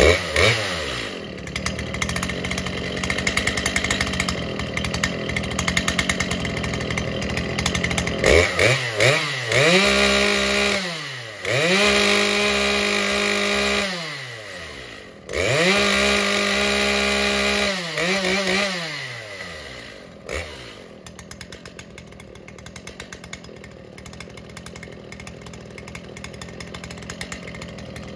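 Two-stroke chainsaw engine running, then revved twice to full throttle: each time the pitch climbs quickly, holds steady for a couple of seconds and falls back. About two-thirds of the way in it settles to a quieter, steady idle.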